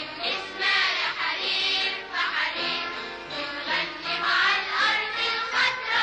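Children's choir singing the series' theme song over instrumental backing.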